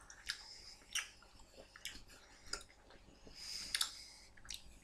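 Close-up mouth sounds of a person chewing a sour chewy sweet: soft wet smacks and clicks every half second or so, with a brief breathy hiss about three and a half seconds in.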